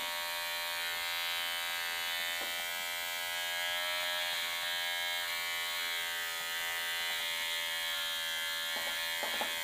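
Unix electric hair clipper with a 12 mm guard running with a steady buzz while trimming stray long hairs. The buzz starts right at the outset and keeps an even pitch and level, wavering slightly as the blades pass through hair.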